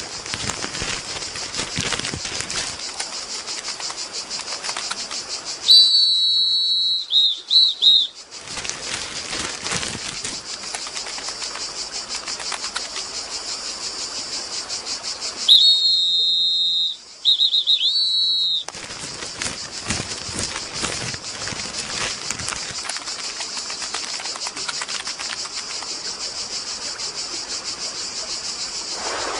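Cartoon sound effects for an animated ant: a steady high insect-like buzzing with fast flickering pulses, broken twice, about six seconds in and again about sixteen seconds in, by a couple of seconds of loud high whistled chirps that waver in pitch.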